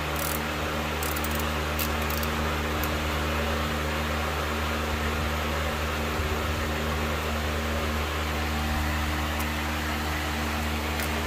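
A steady machine hum with a few held low tones. Light metallic clicks in the first three seconds as a ratchet works the brake caliper's bleeder screw.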